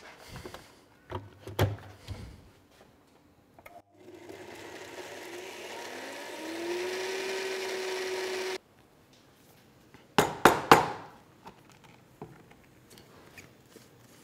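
Small electric blender grinding freeze-dried strawberries into powder: the motor spins up with a rising pitch, holds steady for a few seconds, then cuts off suddenly. A few light clicks come before it starts, and a cluster of sharp knocks follows a little after it stops.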